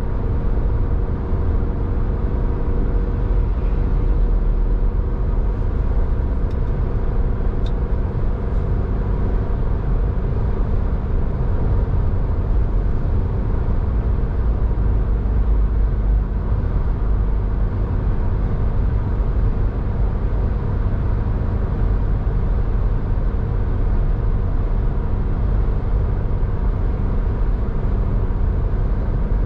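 Steady road-traffic and engine noise of a vehicle on the move: a dominant low rumble with a constant engine hum, unchanging throughout.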